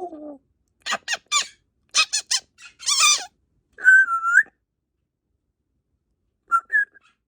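African grey parrot calling: runs of short harsh bursts in quick succession, then a clear whistle with a dip in pitch about four seconds in, and two brief high chirps near the end.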